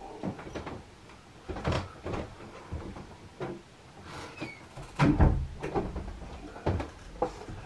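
A string of knocks, thumps and rustles as a person walks into a room and moves about, with the loudest thud about five seconds in.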